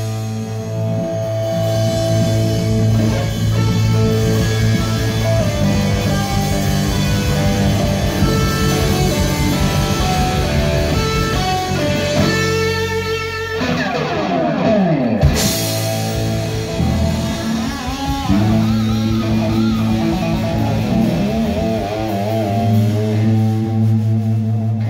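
Rock music: an amplified single-cutaway electric guitar plays an instrumental lead over a steady low bass line. About halfway through there is a long falling sweep in pitch, after which the playing carries on.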